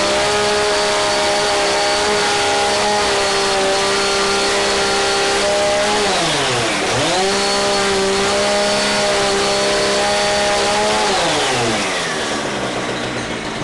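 Gas chainsaw with a 30-inch bar held at full throttle while cutting through a twig-and-resin countertop. The engine drops off and revs back up about halfway through, then winds down toward idle near the end.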